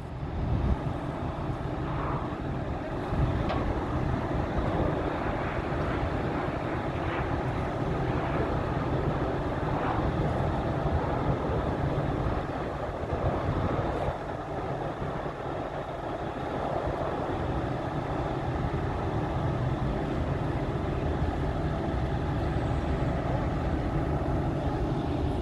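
Heavy equipment's engine running steadily, with a few faint knocks over it.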